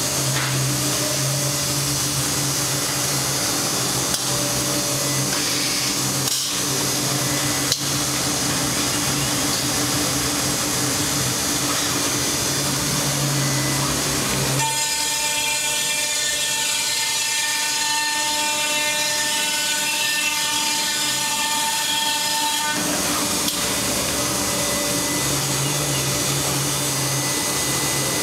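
HOMAG CNC woodworking machining center running with a steady mechanical whir. About halfway through, the low hum gives way to a high whine with many overtones that holds for about eight seconds before the earlier running sound returns. There are two small knocks in the first third.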